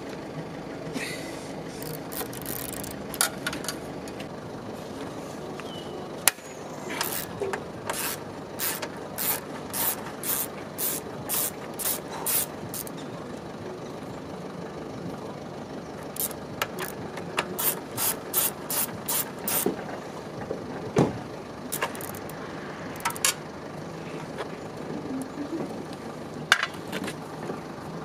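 Socket ratchet wrench clicking in two long runs of quick strokes, about two a second, as the mounting bolts of a Yamaha XT600's exhaust silencer are turned. A few single sharp knocks of the tool fall between the runs.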